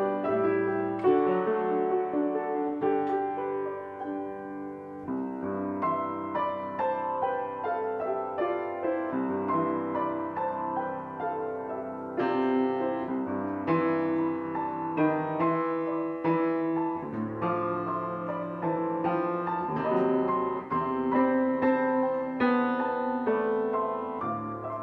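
Solo piano playing, with a steady stream of notes over held chords.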